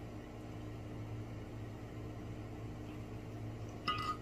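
A steady low hum with hiss, like an appliance or fan running in the room. Just before the end comes a short, high ringing tone.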